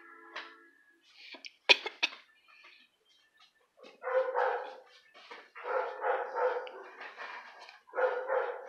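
Dogs play-fighting: two sharp knocks about two seconds in, then a dog barking and growling in several short rough bursts as a Belgian Malinois puppy pesters an older dog.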